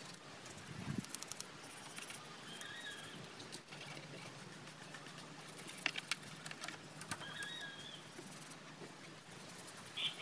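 Light scrubbing and scratching at a scooter's dusty rear wheel and tyre during hand cleaning, with scattered soft clicks.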